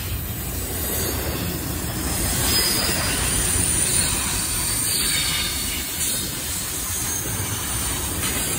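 CSX intermodal freight train's double-stack container well cars rolling past close by: a loud, steady rumble and rattle of steel wheels on the rails, with some high wheel squeal as the cars take the curve.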